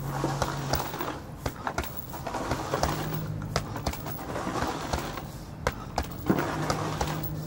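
Boxing gloves striking a heavy punching bag: about ten irregular punches, single blows and quick pairs, with a heavier hit about six seconds in. Behind them, an intermittent scraping noise comes and goes.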